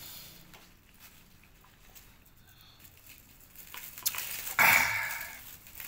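Quiet sips from a small glass of coffee. A few light clicks follow, then, about four and a half seconds in, one loud breathy exhale that fades away over about a second.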